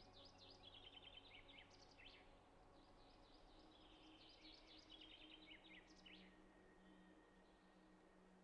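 Faint woodland birdsong: quick chirping trills repeated over several seconds, fading out about six seconds in to near silence.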